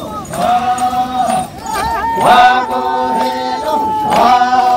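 A group of voices chanting a Sangtam Naga folk song in long held phrases, several voices overlapping.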